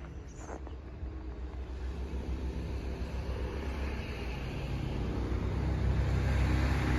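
A road vehicle approaching on a snowy street, its engine rumble and tyre noise growing steadily louder.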